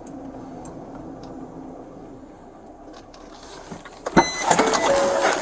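A vehicle running with a steady low hum. About four seconds in there is a sharp clunk, and after it a much louder, rougher machine and outdoor noise.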